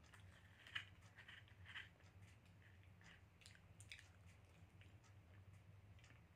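Faint chewing and mouth smacks from someone eating soft avocado and banana, with a few soft clicks scattered through it, over a low steady hum.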